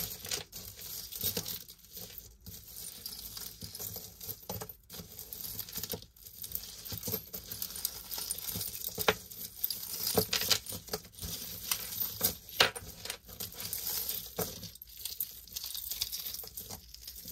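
Tangled metal costume-jewelry chains and beaded wire necklaces jingling and clinking as they are pulled apart by hand, in irregular light clicks and rattles.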